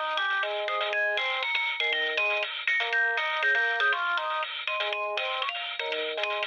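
Alcatel OT 715 mobile phone playing one of its default polyphonic ringtones: a synthesized melody with chords, over quick percussive clicks.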